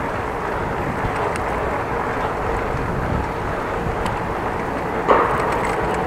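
Steady rush of wind and rolling noise while riding a bicycle, picked up by an action camera's microphone, with a short louder burst about five seconds in.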